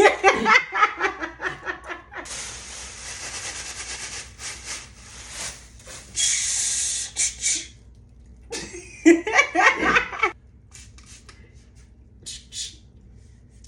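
A person laughing, then hissing and blowing through the mouth in two long hisses, the second louder, imitating an object's sound, with a short voiced burst near the middle-end.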